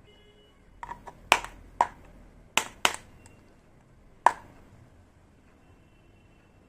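Miniature toy kitchen pieces being handled: a series of sharp, irregular clicks and taps as small hard pieces knock together. The last click comes more than a second after the others.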